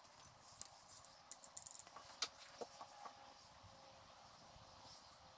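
Faint, scattered clicks and taps of small metal parts being handled as the arms of a motorcycle ignition advance unit are fitted onto the end of the camshaft, with a quick run of clicks about one and a half seconds in.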